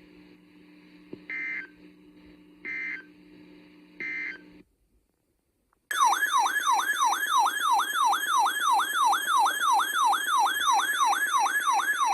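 Emergency Alert System tones: three short bursts of SAME data tone about 1.3 s apart, the end-of-message code closing the previous alert, over a low hum. After a brief silence, a loud warbling alert tone starts, sweeping up and down about three times a second.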